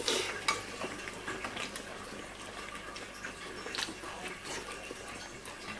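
Faint, scattered clicks and light clatter of plates and food being handled at a meal, with a slightly sharper click right at the start and another a little before the four-second mark.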